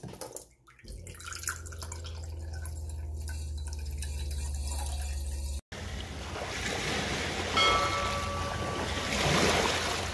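Thin stream of water running from a reverse osmosis drinking-water faucet into a glass in a stainless steel sink, over a low hum; a little past halfway it cuts off abruptly to waves washing on a rocky shore with wind, and a brief ringing tone around three-quarters through.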